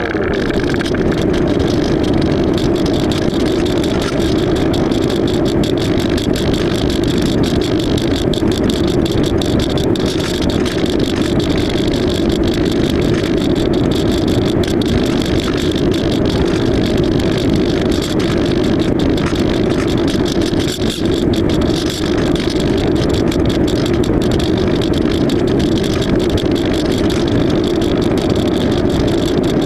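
The electric motor and pusher propeller of an AXN Floater-Jet RC plane running steadily in flight: a loud, even whir with a rushing noise that holds at one level throughout.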